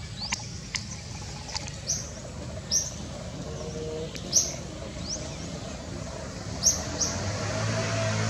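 Birds chirping: short, sharp, high calls about once a second over steady low background noise. Music comes in near the end.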